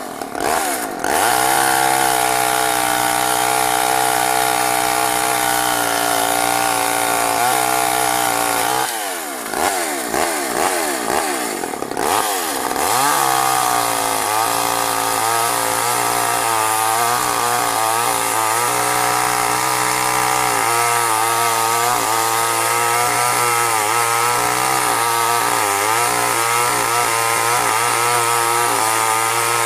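Craftsman two-stroke chainsaw engine running at high revs. The revs ease off and climb back up briefly near the start and again between about nine and thirteen seconds in.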